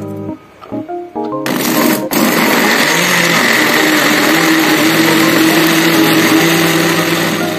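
Electric kitchen blender motor switched on, stopping for an instant just after it starts, then running steadily at high speed with a constant whine until it is switched off near the end.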